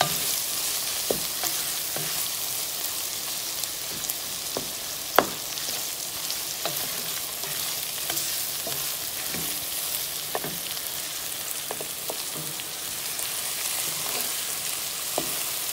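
Ground beef with diced carrot, onion and tomato sizzling in a pot, stirred with a spoon that clicks and knocks against the pot now and then; one knock about five seconds in is the loudest.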